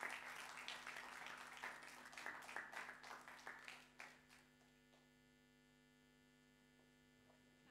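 Small audience applauding, the clapping dying away about four seconds in and leaving a faint steady electrical hum.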